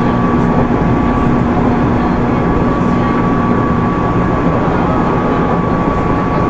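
JR 205 series 600-number electric multiple unit running between stations, heard inside the passenger car: a steady rumble of wheels on rail with a steady whine. A low hum in it stops about four seconds in.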